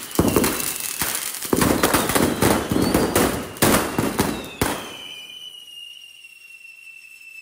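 Mixed firecrackers going off on a street: a dense, rapid run of cracks and bangs for the first four to five seconds, then dying away. A thin high whistle lingers after the bangs stop, fading out near the end.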